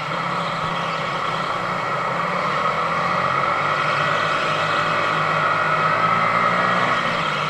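Onboard sound of a Sodi RX250 rental go-kart's engine running at racing speed, its pitch rising gently as the kart accelerates and easing off near the end.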